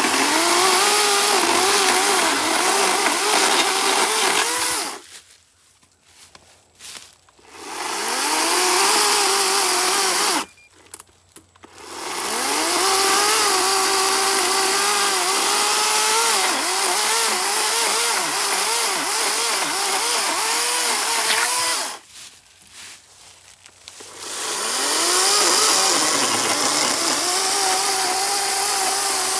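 Greenworks G-Max cordless electric chainsaw cutting through a maple branch in four runs with brief stops between. Its motor whine sags in pitch as the chain bites into the wood and recovers, again and again.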